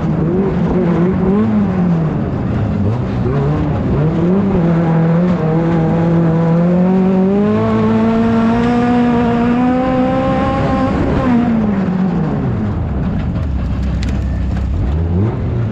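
Off-road race car engine revving hard, rising and falling in pitch as it is driven, then climbing steadily for several seconds before dropping away to a low idle near the end.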